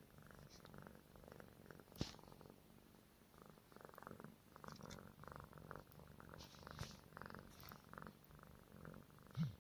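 Li Hua tabby cat purring steadily, the purr swelling and fading with each breath. There is a sharp click about two seconds in and a soft thump near the end.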